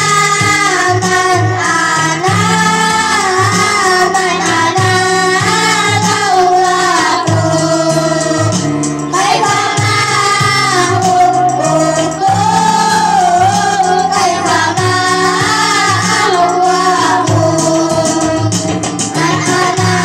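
A group of children singing sholawat, an Islamic devotional song, together into microphones, with instrumental accompaniment and a bass line stepping beneath the melody.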